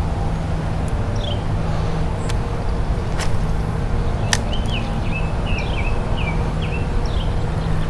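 Steady low rumble of road traffic, with small birds giving short downward-slurred chirps every second or so and a quick run of chirps about halfway through. A few sharp clicks stand out.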